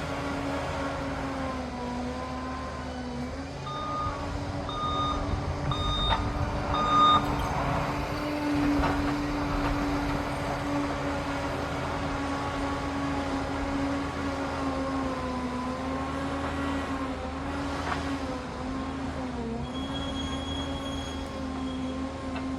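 Liebherr PR 746 crawler dozer's diesel engine running steadily under load, its pitch dipping and recovering slightly. Four short reversing-alarm beeps come evenly spaced in the first third.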